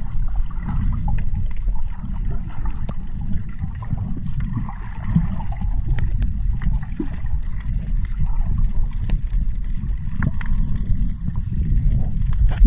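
Underwater ambience: a steady low rumble of water with scattered small clicks and pops.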